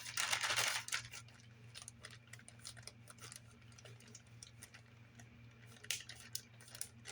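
Rustling and scattered light clicks of small hardware and packaging being handled, loudest in the first second, over a steady low hum.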